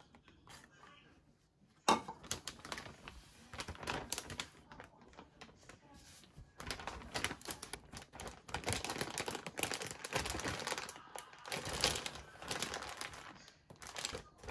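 Plastic zipper storage bag being handled and sealed: a sharp click about two seconds in, then rapid clicking and crinkling of the thin plastic as its press-seal closure is pushed shut and the bag is pressed flat.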